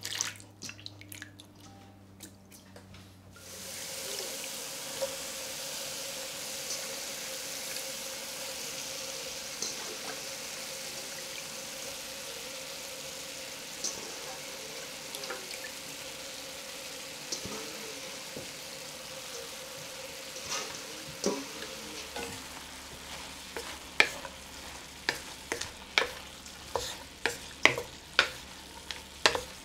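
Hands swish shredded potato in a bowl of water for the first few seconds. Then shredded potato and pork sizzle in oil in a wok with a steady hiss. From about three-quarters of the way through, a wooden spatula stirring the stir-fry knocks against the wok in quick clacks.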